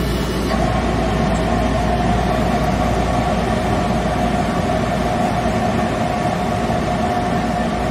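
Motor of a stain-removal spotting table running steadily with a rushing noise, a steady whine joining about half a second in.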